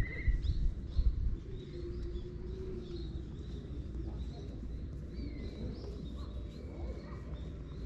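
Small birds chirping faintly and intermittently over a steady low outdoor rumble, with a few dull knocks in the first second or so.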